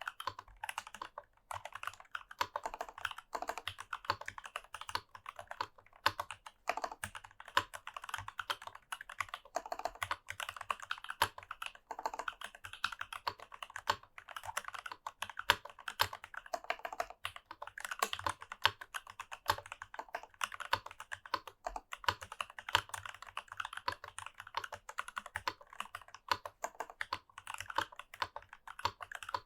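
Continuous fast typing on a mechanical keyboard with stock, unlubed C3 Tangerine linear switches in a brass plate (Rama Works U80-A Seq 1), the keystrokes coming in a rapid, dense stream of clicks.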